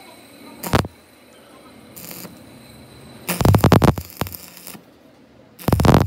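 Arc welding on a worn brake caliper pin held in a lathe chuck, building up the undersized pin with weld metal. The arc crackles in several short bursts, the longest lasting about a second, a little past three seconds in.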